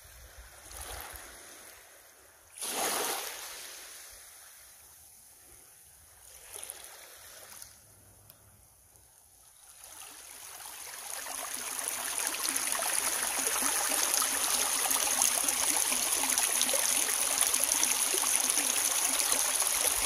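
Small waves washing softly onto a pebble shore, a few separate swashes with the one about three seconds in the loudest. From about ten seconds in, the steady rush of a shallow stream running over pebbles fades up and holds.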